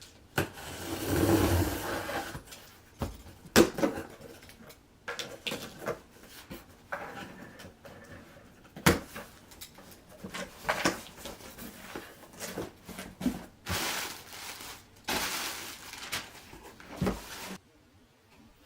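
Packaging being handled and opened by hand: irregular rustling and scraping with scattered knocks and clicks, the longest rustling about a second in and again near the end.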